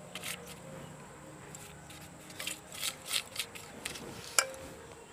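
Newspaper lining inside a pressure cooker rustling and crinkling under an oiled hand rubbing over it, in a few short, soft strokes, most of them around the middle.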